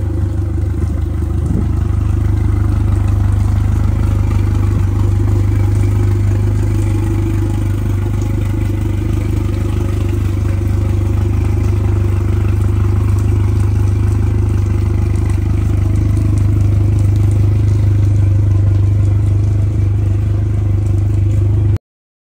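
Yamaha VMAX 115 outboard motor running steadily, a loud even engine hum that cuts off suddenly near the end.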